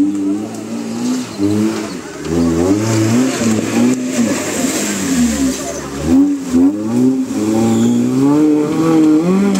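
Maruti Gypsy 4x4's engine revving repeatedly as it drives through deep mud and water, the pitch rising and falling with the throttle, with mud and water splashing around the wheels.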